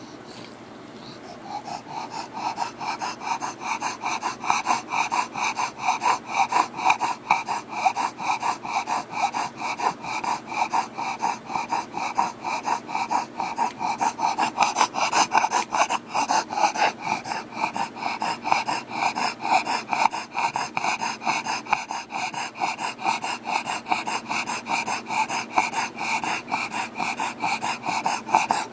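A bulldog breathing heavily and noisily through its short airway, a quick, even run of loud breaths that starts about a second and a half in.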